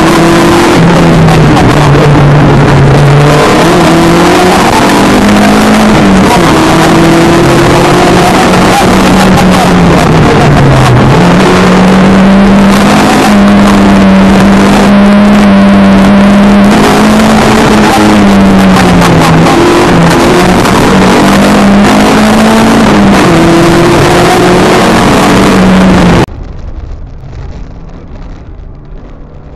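Opel Kadett C GTE Group 2 rally car's four-cylinder engine heard from inside the cabin, running hard at high revs, its pitch stepping down at gear changes and dipping once near the middle before pulling up again. Near the end the sound cuts off suddenly to a much quieter, duller background.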